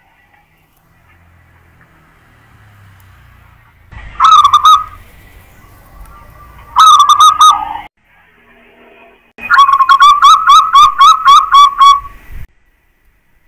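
Zebra dove (perkutut) cooing loudly: two short cooing phrases, then a longer run of about ten quick, pulsing coos that stops about a second before the end.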